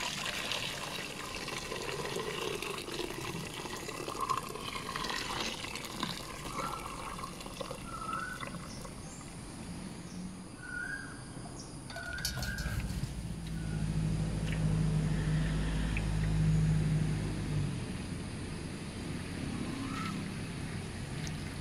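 Hot liquid agar-agar poured from a pan through a stainless-steel mesh strainer into a pot, splashing and trickling, then pouring into a metal tray near the end. A low hum swells for several seconds in the middle and then fades, and a few short chirps come and go.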